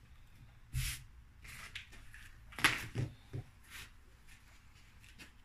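Hands handling curtain fabric and eyelet tape on a tabletop: soft rustling with a few light knocks and thumps, the loudest a little under three seconds in.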